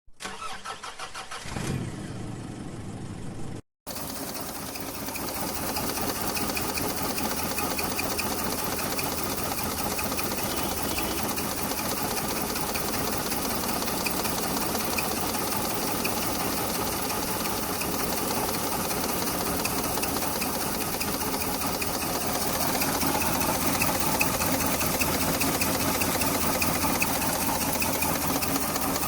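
Maruti 800's three-cylinder petrol engine running with a misfire, shaking and uneven. The sound breaks off briefly about four seconds in, then the engine runs on steadily, a little louder near the end.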